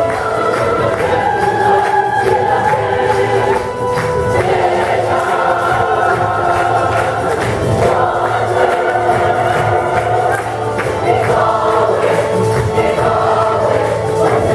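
A large stage chorus of children and adults singing together, with a steady percussion beat under the voices.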